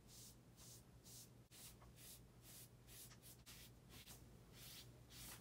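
Faint, swishing strokes of a paintbrush on paper, about two a second, as a brush spreads liquid cyanotype sensitiser across the sheet.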